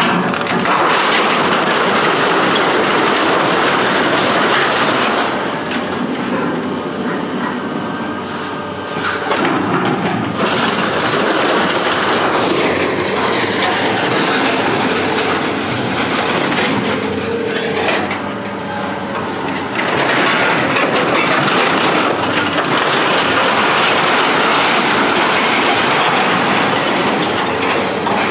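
Loud, continuous rattling and clanking of scrap metal being loaded by heavy machinery. It eases briefly about nine seconds in and again near eighteen to twenty seconds in.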